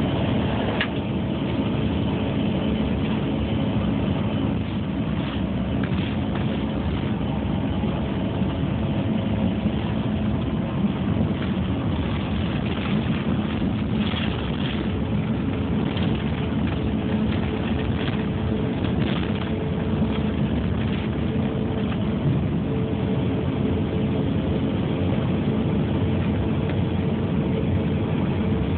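Steady jet engine noise heard inside the cabin of a CRJ200 during takeoff and climb: its two rear-mounted GE CF34 turbofans running at high thrust, a constant rushing noise with several steady low hums.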